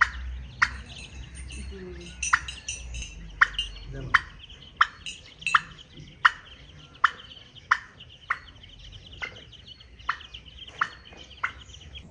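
White domestic turkey calling in a long, even series of short sharp calls, about three every two seconds, over a thin, steady peeping of goslings.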